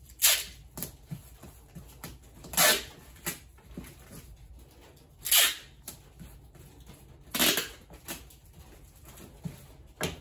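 Packing tape being pulled off the roll in four half-second rasps, about every two and a half seconds, with small knocks of handling between them.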